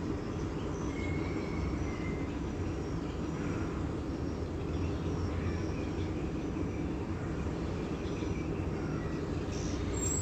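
Steady low background rumble with a few faint, short high chirps over it.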